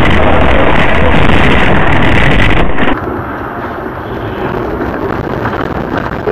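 Dashcam audio from inside a moving car: loud, distorted road and wind rumble that cuts off abruptly about three seconds in, giving way to quieter road noise with a faint steady high whine.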